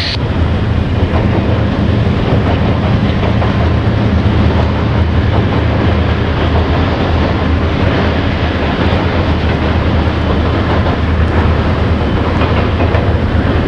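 Freight train hauled by CSX diesel locomotives crossing a steel truss bridge, a steady low rumble of engines and rolling wheels.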